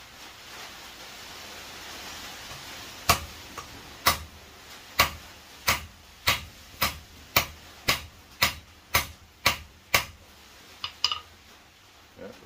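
Hand hammer striking red-hot steel bar stock on an anvil: about a dozen sharp blows at a steady pace of roughly two a second, starting about three seconds in, then a couple of lighter taps. A faint hiss fills the first few seconds.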